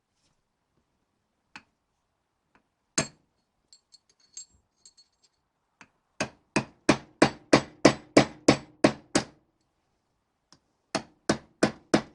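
Hammer blows driving a new wheel bearing race into a classic Mini rear hub, with the old race used as a drift. A few light knocks and metallic clinks come first. Then about a dozen even strikes follow, roughly three a second, break off briefly and start again near the end.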